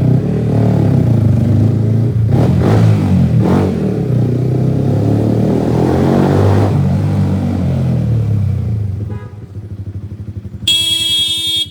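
Motorcycle with a loud aftermarket exhaust revving and accelerating hard, the engine note rising and falling, then easing off and fading. Near the end a horn sounds once, about a second long.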